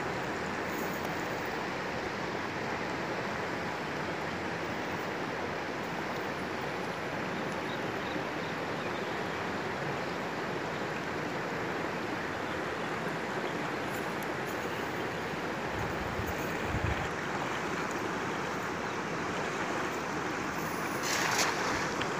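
Steady rush of a shallow river flowing over rocks, with a short splash about a second before the end.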